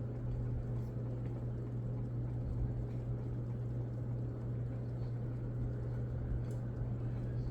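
Sierra Turbo II ceiling fan's K55-type motor running on high speed: a steady hum with a whir of air from the blades.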